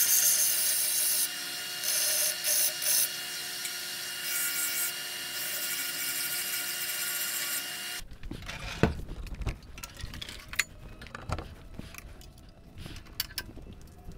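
Bench belt sander running with the end of a 1.5-inch pipe held against the belt; the grinding hiss swells and eases several times as the pipe is pressed on and let off. About eight seconds in it cuts off abruptly, and scattered clicks and knocks of gear being handled follow.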